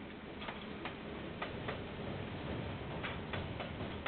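Sharp, light clicks or ticks at irregular intervals, about two a second, over a steady hiss, heard through the narrow-band microphone of a security camera.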